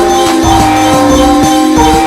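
Electronic synthesizer music: a stepping synth melody over a low bass that switches on and off, with regular percussive hits about three times a second.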